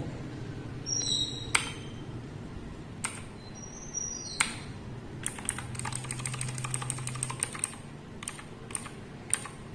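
Keys of a Keychron K8 aluminium-case mechanical keyboard being pressed to change the backlight colour. A few single key clicks come first, then a quick run of key presses for about two seconds past the middle, then a few more scattered clicks.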